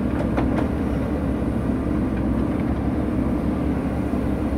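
JCB 3DX backhoe loader's diesel engine running steadily while the backhoe arm and bucket work the mud.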